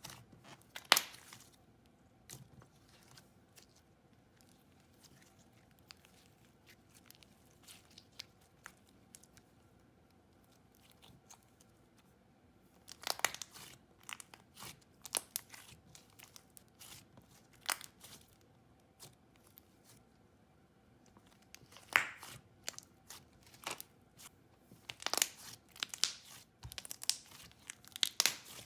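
Butter slime with clay mixed in being handled: scattered sticky crackles and small pops, in clusters separated by quiet stretches, the busiest bunch near the end.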